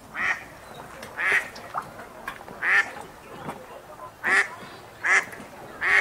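Mallard ducks quacking: about six loud, short quacks at uneven gaps of roughly a second.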